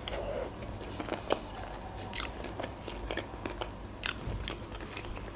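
Close-up chewing of a steamed manti dumpling: soft mouth clicks and smacks, with a few louder ones about two and four seconds in.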